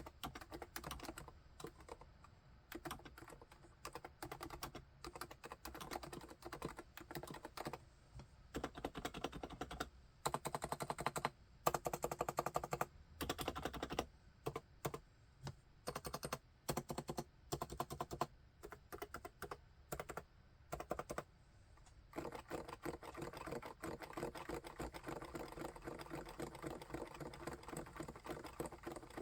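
Typing on a Realforce XF11TS full-size keyboard with Topre silent capacitive switches and HiPro-profile Renso keycaps. Fast, steady keystrokes, with a louder flurry about a third of the way in, then scattered short runs with brief gaps before even, fast typing resumes.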